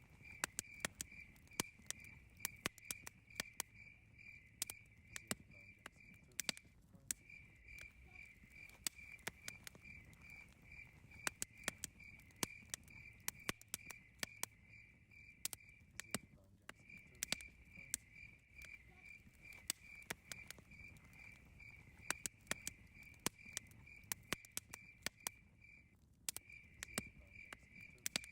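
Campfire crackling with scattered sharp pops, over a cricket's steady pulsing chirp that drops out briefly three times.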